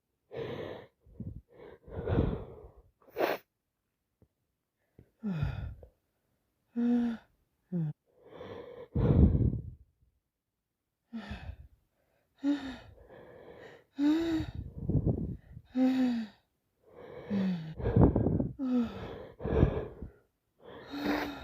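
A woman hitching on the verge of a sneeze: a long run of sharp gasping in-breaths and short voiced 'ah' catches, some sliding in pitch, with a few louder outbursts around the middle and near the end. The sound of a hay-fever tickle building toward a sneeze.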